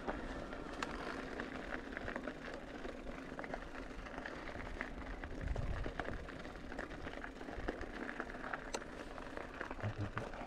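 Trek Rail 5 electric mountain bike being ridden over a rough trail: steady tyre noise over loose stones, with many small clicks and rattles from the bike.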